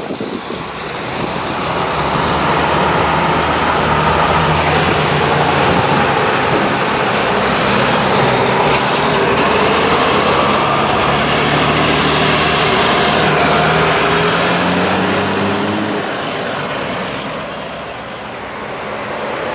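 Brockway trucks driving past one after another, their engines pulling away with the pitch climbing and dropping through gear changes. The sound swells as the trucks pass and eases off near the end.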